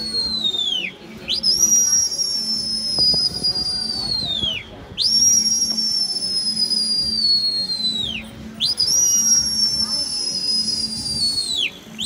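A person's loud, long whistles, sounded again about every three and a half seconds: the end of one, then three more. Each starts high, sinks slowly and drops off sharply at the end. This is a pigeon flyer whistling to drive his flock on in the air.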